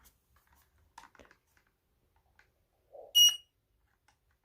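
Fyrnetics 0914E smoke alarm sounding one short, loud, high beep about three seconds in, just after a faint knock.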